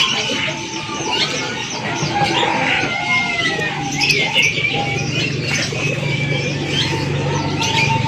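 Many market birds chirping and whistling over one another, short calls and gliding notes in quick succession. A low steady hum joins in about five seconds in.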